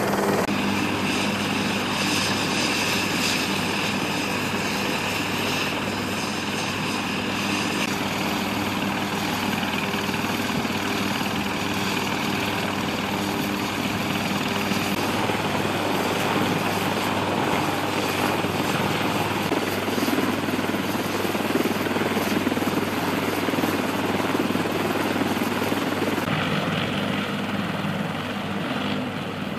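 Bell UH-1Y Venom helicopter running on the ground, its twin turboshaft engines and turning rotors making a steady drone with a low hum. It is a little quieter in the last few seconds.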